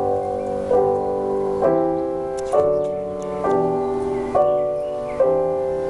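Slow piano music: chords struck a little under once a second and left to ring.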